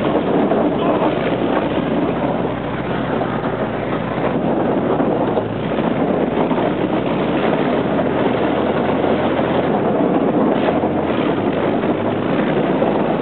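Armoured vehicle's engine running steadily as it drives along, heard from on top of its hull, with wind buffeting the microphone.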